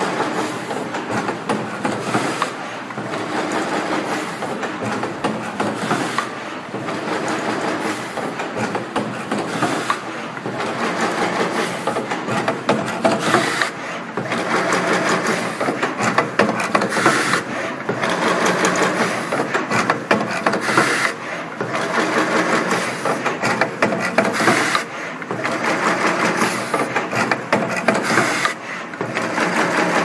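Automatic double-ended flat ribbon cable crimping machine running: a busy, continuous clatter of sharp mechanical clicks and knocks over a steady machine hum.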